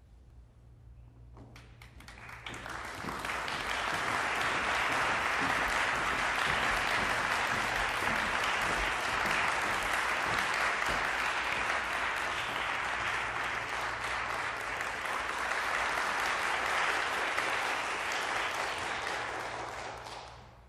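Audience applauding to greet the performers as they come on stage. The clapping starts about a second and a half in, swells, holds steady, and dies away just before the end.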